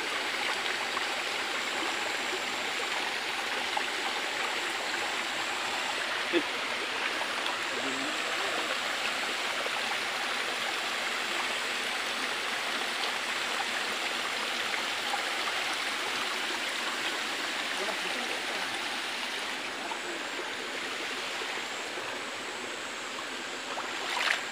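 Shallow forest stream running over rocks: a steady rush of flowing water, with a couple of faint ticks a few seconds in.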